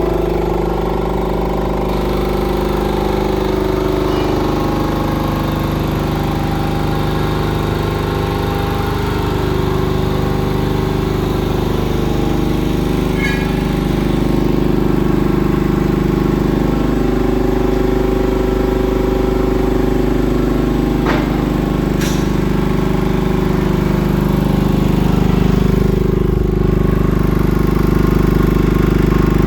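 Hatlapa V200 marine air compressor running steadily under test, a continuous mechanical hum and rattle. A couple of brief sharp ticks come about two-thirds of the way through.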